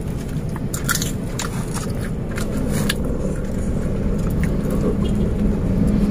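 Steady low rumble of a car heard from inside its cabin, with a steady hum joining about two and a half seconds in. Scattered small clicks and crunches of chewing sound over it.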